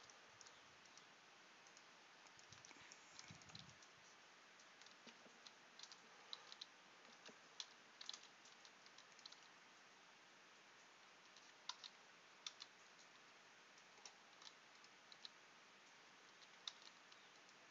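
Faint computer keyboard keys pressed now and then, single short clicks scattered irregularly over low background hiss, with a pause of a couple of seconds midway.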